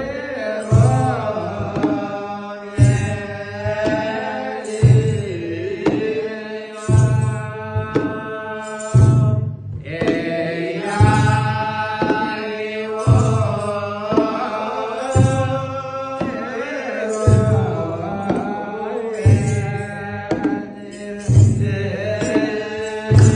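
Orthodox Tewahedo church chant: a group of men singing in unison over kebero drums, which beat a slow, steady rhythm with a heavy stroke about every two seconds. The singing breaks off briefly near the middle.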